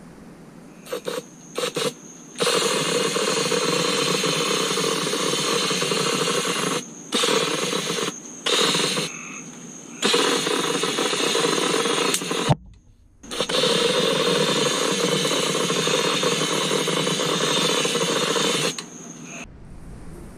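Powder coating gun spraying with compressed air, worked in trigger pulls: a few short blasts, then long steady hissing runs of several seconds with short pauses between them. A sharp click sounds about twelve seconds in.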